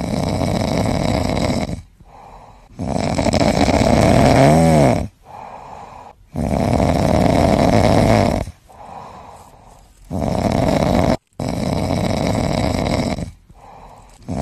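Shiba Inu snoring in its sleep: four loud snores, each about two seconds long, with a quieter breath between them.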